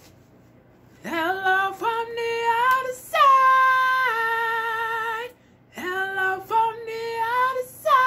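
A woman singing an unaccompanied tune. A short rising phrase ends on a long held note with vibrato, and after a brief pause the same phrase is sung again.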